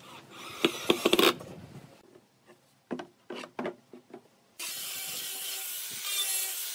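A Hitachi 28V cordless drill driving a screw into pine boards, then a few wooden knocks. About four and a half seconds in, an angle grinder with a sanding disc comes in suddenly and sands the pine steadily.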